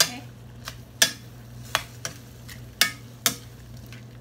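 A spatula stirring beef and onions in a stainless steel frying pan, knocking sharply against the pan about six times over a light sizzle of frying. A steady low hum runs underneath.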